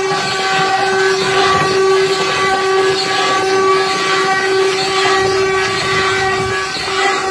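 Wooden ox cart (carro de boi) singing: its wooden axle turning in its wooden bearing blocks gives a loud, steady whining tone with overtones that wavers a little and dips briefly near the end, over the low rumble of the wheels on the dirt road.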